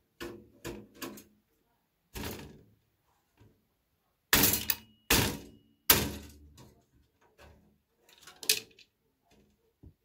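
Irregular knocks and clunks on a desktop computer's sheet-metal case as a part is worked loose with a screwdriver and by hand; the three loudest thuds come in quick succession about four to six seconds in, one leaving a short metallic ring.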